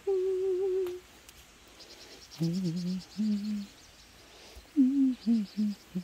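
A person humming a slow tune in three short phrases. The first is a held high note with a wobble, the next two lower notes, and near the end a falling run of notes.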